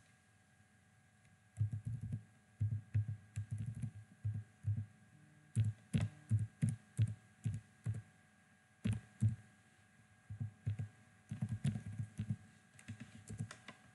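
Typing on a computer keyboard: irregular key clicks in short bursts with brief pauses, starting about a second and a half in.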